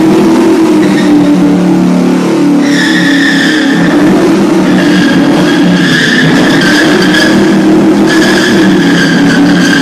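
Cobra-style roadster doing donuts on a wooden floor: the engine runs at high revs while the rear tyres squeal on the wood. The squeal comes in long stretches, starting about three seconds in and breaking off briefly twice.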